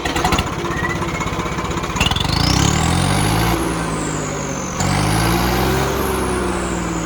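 Turbocharged Swaraj 855 tractor's three-cylinder diesel engine revved twice. Each time a high turbo whistle climbs with the engine speed, higher on the second rev, and falls away as the throttle closes.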